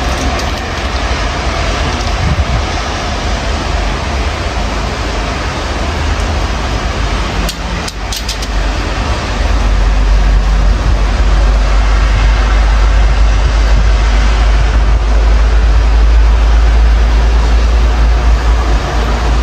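Storm wind rushing and buffeting the microphone with a steady hiss, and a deep rumble that grows louder about ten seconds in and holds.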